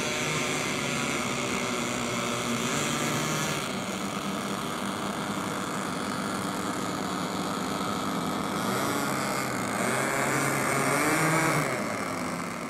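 The four engines of a radio-controlled Short Sunderland flying boat model running as it taxis on the water, their pitch wavering and rising and falling near the end as the throttle changes.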